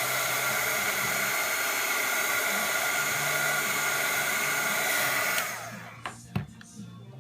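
Electric hot-air blower running with a steady rushing hiss and fan whine. It is switched off about five seconds in, and its whine falls as the fan spins down. Two light clicks follow.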